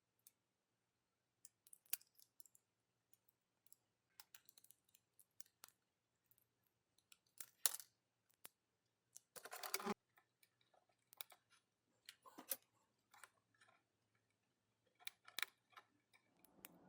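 Scattered small clicks, taps and rustles of plastic packaging and parts being handled during an unboxing, with a longer rustling scrape about ten seconds in.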